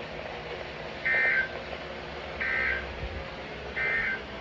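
Three short bursts of Emergency Alert System SAME digital data tones, about a second and a half apart. These are the coded tones that mark an alert message on the air.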